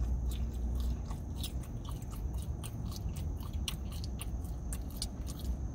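A person chewing a mouthful of spinach and feta wrap, with many small, irregular mouth clicks.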